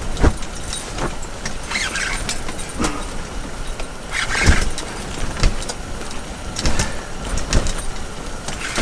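Strong blizzard wind on the microphone, a continuous rumbling noise, with about a dozen irregular knocks and clicks from the angler handling his gear while he brings a hooked lake trout up through the ice hole.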